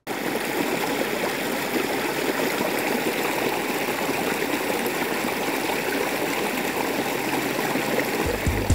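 Small woodland stream cascading over rocks: a steady rush and splash of water.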